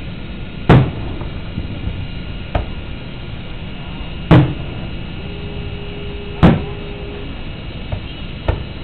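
Fireworks shells bursting in the sky: three loud booms a few seconds apart, each with a short echoing tail, and two fainter bangs between them.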